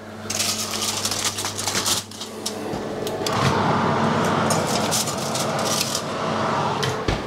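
Aluminium foil crinkling and a baking dish clattering as a foil-covered dish is lifted off a worktop and put into an oven, with a run of clicks and knocks. About three seconds in, a louder, steadier noise comes in with more clatter.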